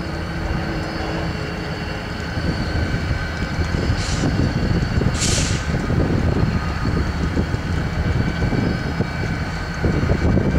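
Diesel-electric freight locomotives rumbling as they roll slowly in on a grain train, with a faint steady whine over the engine noise. About four and five seconds in come two short hisses of air.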